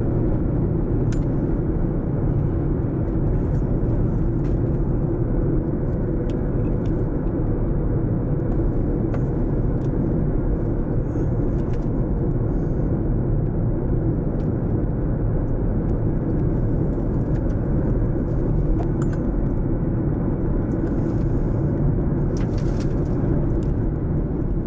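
Steady, loud low rumble and rush of a dust-laden tornado's wind around the filming vehicle, with scattered faint ticks.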